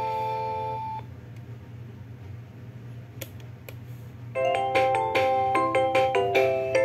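Preloaded ringtones playing from a Huawei ETS3125i desk phone's speaker. One melody ends on a held chord about a second in. After a few seconds of low hum with a few faint clicks, a new ringtone starts as a fast run of short notes.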